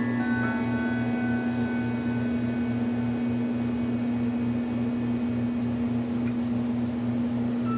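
A steady low electrical hum. The last notes of a clock's chime melody ring out and fade during the first second or so. There is a single faint click about six seconds in.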